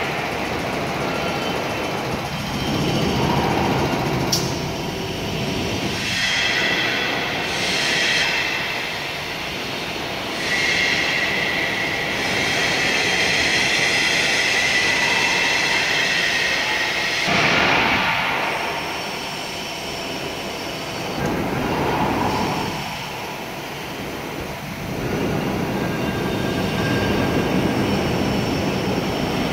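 YFB-DY300 valve test bench running during a high-pressure water test: a steady mechanical noise with hissing and whistling that swells and fades several times.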